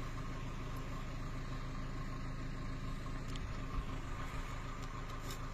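Car engine idling steadily: a low, even hum.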